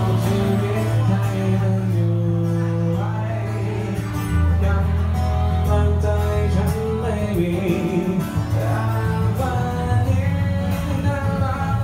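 A song with a male voice singing over guitar and a steady bass line.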